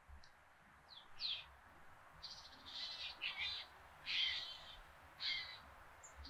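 Small birds chirping outdoors: a few short falling chirps, then several quick chattering phrases.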